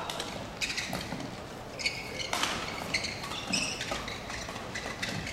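Badminton doubles rally: rackets striking the shuttlecock with sharp hits every second or so, mixed with shoes squeaking on the court mat.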